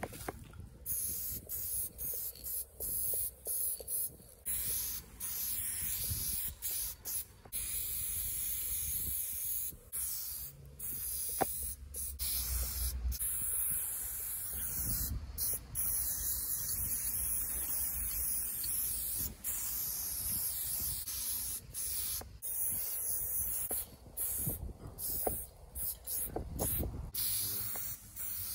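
Aerosol spray-paint can hissing in long bursts broken by many short pauses, as the can is sprayed on and off.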